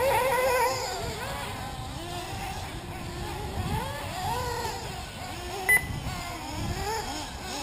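Several 1/8-scale nitro RC buggy engines revving up and down as the cars race around the track, their pitch rising and falling in overlapping waves. A single short, sharp beep cuts through near the end.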